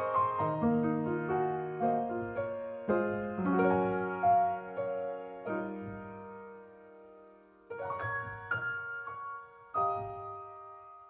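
Background piano music: slow, gentle chords and single notes that ring and fade, thinning to a pause about seven seconds in before new chords come in.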